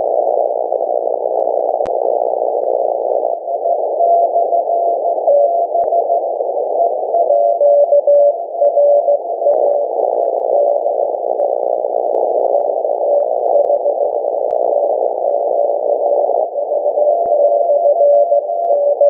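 Flex 5000A receiver audio: a steady hiss of band-limited noise, with Morse code (CW) tones at two slightly different pitches keyed on and off from about three seconds in.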